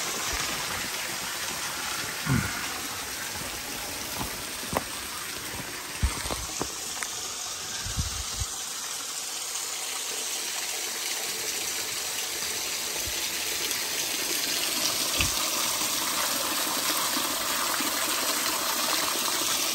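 Steady rushing hiss of a small waterfall splashing onto rock, growing slightly louder in the second half. A handful of short, dull thumps stand out over it, mostly in the first half.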